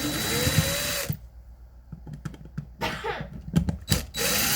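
Power drill driving out the two outlet screws in short runs: the motor whines up and runs until about a second in, then light clicks and rattles, and it runs again near the end.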